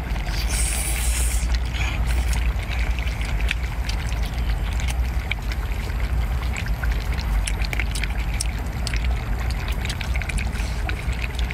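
Eating sounds: a slurp about a second in as an octopus tentacle is sucked in, then chewing and many small wet clicks, over a steady low rumble.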